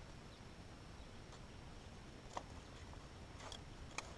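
A few faint, sharp clicks and taps of dry sticks being handled and wedged into a woven stick cage trap, over a quiet background.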